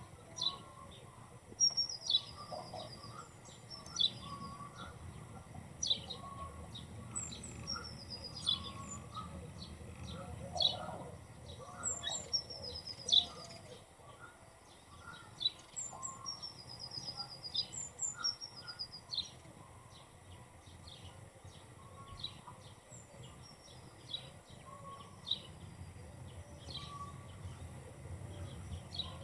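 Small birds chirping over and over in short high calls, with a few brief trills, over a faint low background hum.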